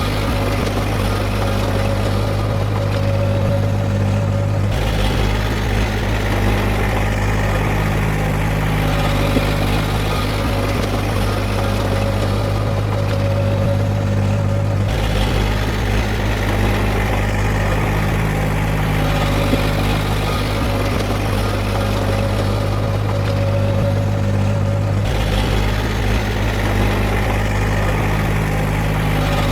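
Heavy earthmoving machine's diesel engine running steadily. Its low engine note shifts abruptly to a different level about every ten seconds.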